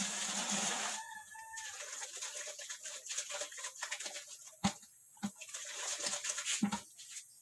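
Water poured from a plastic dipper splashes into a plastic bucket and stops about a second in. A chicken calls just after, and a few sharp knocks come in the second half.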